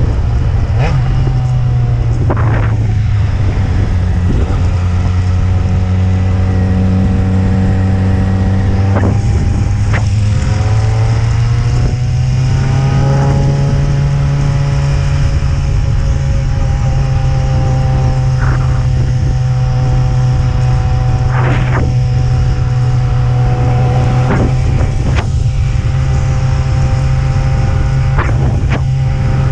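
Yamaha XJ6N's 600 cc inline-four engine running steadily at cruising speed, heard from on the bike with road and wind noise underneath. About ten seconds in the engine note rises a little and then holds at the higher pitch.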